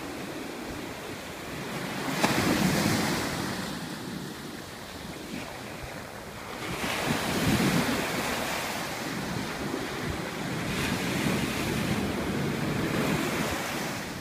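Ocean surf breaking on a sandy beach: a steady wash of water that swells louder three times as waves crash and run up the shore.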